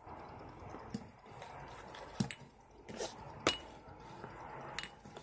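Scattered light clicks and clinks of small hard objects being handled and set down, about six spread irregularly, two of them with a brief ringing tone.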